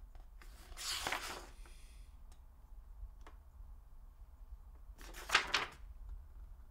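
Paper pages of a book being turned: two short rustling swishes, about a second in and again around five seconds in.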